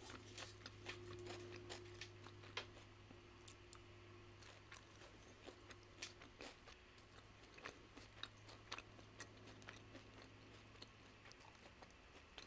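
Faint close-miked chewing and crunching of tortilla nacho chips loaded with bulgogi and toppings: irregular crisp crunches and mouth clicks over a low steady hum.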